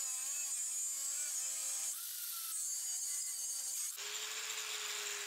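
Angle grinder with a cut-off disc cutting through a steel bar: a high-pitched whine whose lower tones waver as the disc bites into the metal. About four seconds in, the disc comes off the bar and the grinder runs at one steady pitch.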